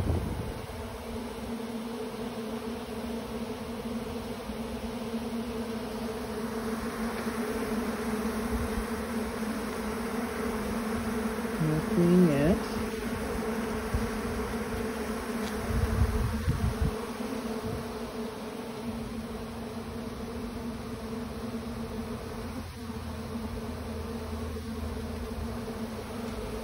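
Honey bees of a disturbed colony buzzing in a steady, even hum during a removal. A couple of brief handling knocks come partway through.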